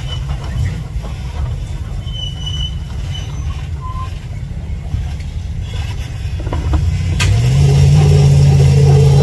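Off-road truck engines running low and steady as the vehicles crawl down a dirt slope. About seven seconds in there is a single sharp click, and then a steady engine drone grows louder and holds.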